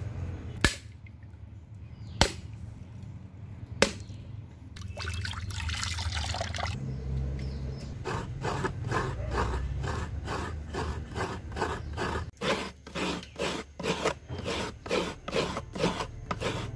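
A husked coconut is struck three times, sharp single knocks about a second and a half apart, to crack it open, followed by a short trickle of coconut water. Then a coconut half is scraped on a coconut scraper in quick, regular strokes, about three a second, grating out the flesh.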